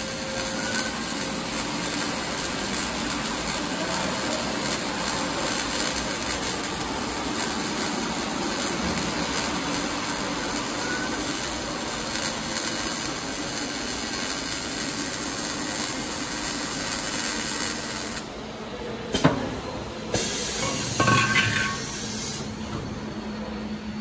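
Automatic welding machine's arc running steadily on the circumferential seam of a rotating water heater tank, a continuous even welding noise. The arc stops about 18 seconds in, followed by a single sharp knock a second later and a few short handling noises.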